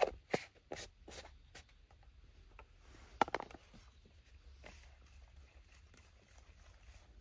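A few light clicks and rubbing sounds from handling a plastic bait measuring cup and water bottle while mixing powdered fishing bait with water, in a cluster in the first second and a half and again about three seconds in.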